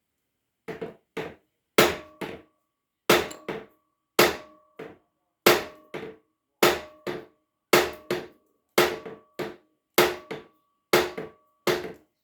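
Hammer blows on a seized outboard's piston, driving it down to break the stuck engine free. About ten heavy strikes land roughly a second apart, each followed by a lighter rebound hit, and the metal rings briefly after the blows.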